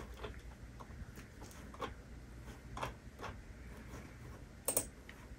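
Faint, irregular clicking from working a computer's keyboard and mouse, a few scattered clicks with a louder double click near the end.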